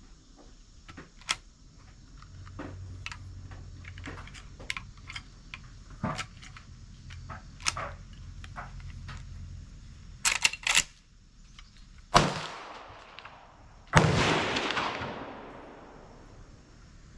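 Small handling clicks and taps, then a quick run of sharp clicks, followed by two .357 Magnum gunshots about two seconds apart. The second shot is the louder, with a long fading echo.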